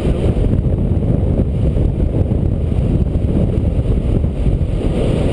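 Steady wind rushing and buffeting over the microphone of a camera mounted on a tandem paraglider in flight.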